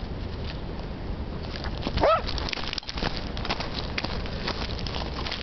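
Australian terrier giving a single short bark about two seconds in, over steady low background noise.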